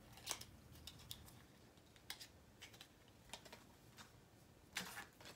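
Faint, scattered clicks and taps of small cosmetic samples and their packaging being handled and picked out of a subscription box, with a slightly louder cluster near the end.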